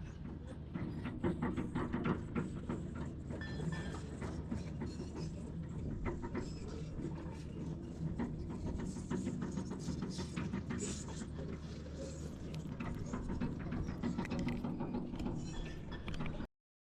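Heavy diesel machinery, likely the Hyundai excavator, running steadily with frequent metallic clanks and rattles. The sound cuts off suddenly near the end.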